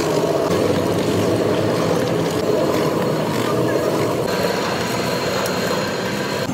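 Motor-driven oil mill running, its pestle grinding peanuts round the steel drum: a steady mechanical rumble with crunching.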